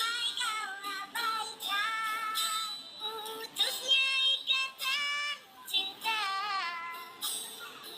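Very high-pitched singing with a wavering vibrato on held notes, in short phrases broken by brief gaps, over music.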